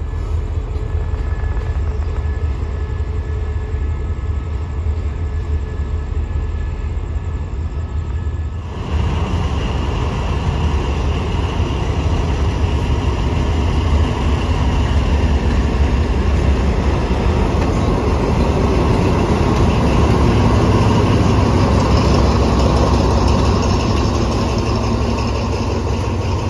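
Diesel-electric locomotive engines running: a steady low rumble. About nine seconds in, the sound cuts to a louder engine with a steady whine above the rumble.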